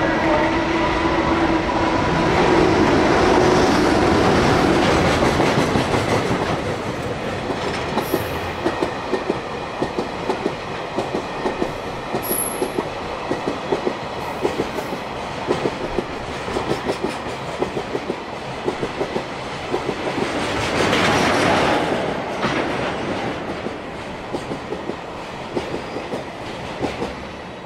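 A JR Freight EH200 electric locomotive passes close by with a steady hum, followed by a long train of oil tank wagons whose wheels clack over the rail joints in a regular rhythm. A louder rush swells and fades about twenty seconds in, and the sound fades as the last wagons go by.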